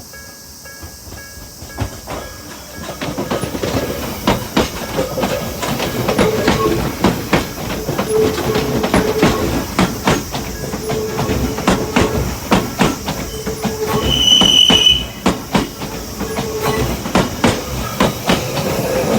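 An Odakyu 60000-series MSE electric train passing over a level crossing. The crossing bells are ringing when it arrives about two seconds in, then its wheels clatter steadily over the rail joints as the cars go by. There is a brief high tone about three-quarters of the way through.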